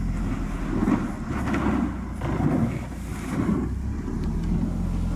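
Chevrolet Malibu driving slowly along a dirt road, heard from the open trunk: the engine runs low and steady under uneven rumbling bursts of noise from the road and wind on the microphone.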